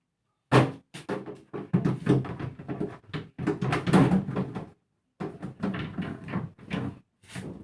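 Rapid knocking and clattering in a refrigerator being cleaned out during defrosting: a dense run of knocks for about four seconds, a short break, then more.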